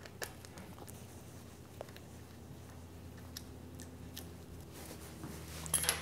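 Faint small ticks and clicks of a hex driver turning M3 screws into a plastic plate on the back of a stepper motor, over a low steady hum. A few louder clicks come near the end.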